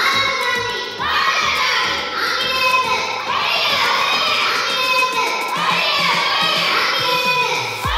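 A group of children shouting slogans together through a microphone and loudspeakers, a short call repeated about once a second.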